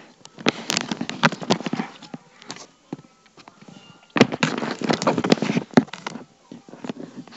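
Handling noise: fingers rubbing and scraping over the handheld recording device and its microphone, in two crackling bursts of about two seconds each with scattered clicks between.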